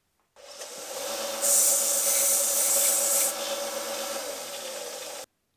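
Delta bench grinder running with a steady motor hum while the end of a steel rod is ground to a bevel: from about a second and a half in, metal against the wheel gives a loud hiss for about two seconds, then the motor runs on alone until the sound cuts off suddenly.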